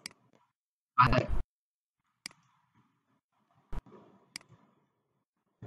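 Computer keyboard keystrokes: four sharp single clicks a second or so apart, while an Excel formula is typed. About a second in there is a brief burst of a man's voice, the loudest sound.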